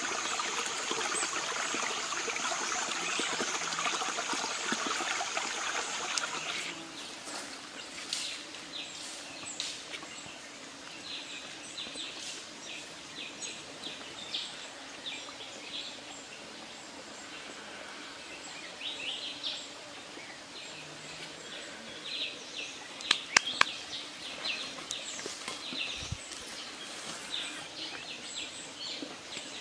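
Forest ambience: a steady insect drone that stops abruptly about six and a half seconds in, then a quieter bed with scattered short bird chirps. Two sharp clicks come a little after twenty-three seconds.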